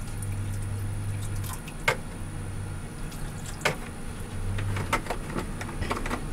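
Water poured from a plastic jug into a pan of sauce on the stove, with a few sharp clicks from the plastic jug over a low hum.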